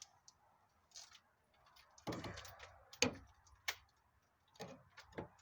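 Scattered light metallic clicks and clinks of hand tools being handled, with a short scrape about two seconds in.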